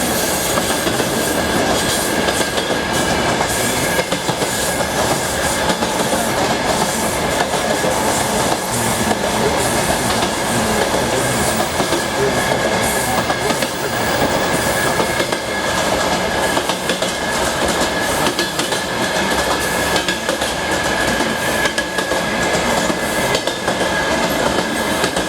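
Passenger train running at speed, heard at the carriage window: a steady rumble of wheels on rails with the clickety-clack of the wheels going over the rail joints, and a thin, steady high whine.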